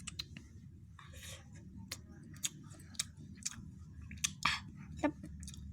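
A person chewing food close to the microphone, with a string of short mouth clicks and smacks, over a faint low steady hum.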